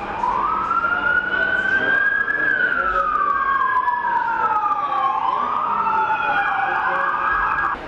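A fire engine's siren wailing, its pitch sweeping slowly up and down in long rises and falls, with a second overlapping sweep in the middle. It cuts off suddenly near the end.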